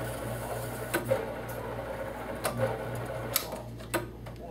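A screen separation machine running with a steady low hum, with a few sharp clicks.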